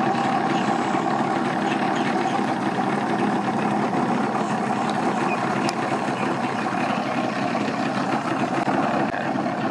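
An engine idling at a steady pitch.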